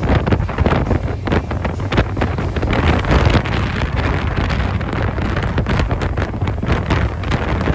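Wind buffeting a phone microphone on a moving motorcycle, loud and gusty, with the bike's running and road noise underneath.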